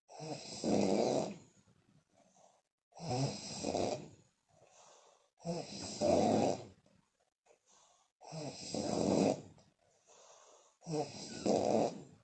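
A woman snoring loudly with puffing lips: five snores in a slow, even rhythm about every two and a half seconds, each swelling in two surges, with a soft puff of breath out between them.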